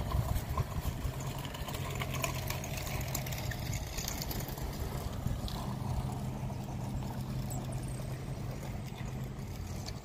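A steady low engine hum, as of a motor idling, running evenly under light outdoor background noise.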